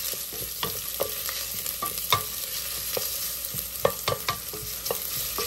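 Sliced onions sizzling in hot oil in a stainless steel pot, with a steady hiss. A wooden spatula stirring them knocks and scrapes against the pot several times, at irregular intervals.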